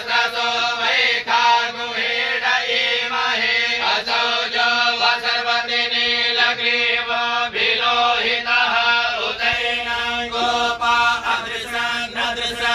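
Sanskrit mantras chanted in a steady, rhythmic recitation over a held drone note.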